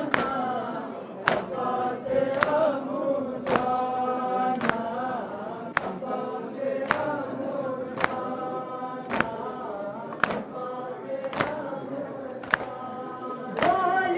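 A crowd of men chanting a Shia noha lament together, with sharp collective chest-beats (matam) in unison about once a second keeping the rhythm.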